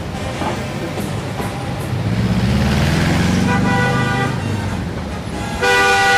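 Heavy city street traffic. A large vehicle's engine drones low through the middle, swelling and then fading. A car horn sounds faintly around three and a half seconds in, and a louder, short car horn honk comes near the end.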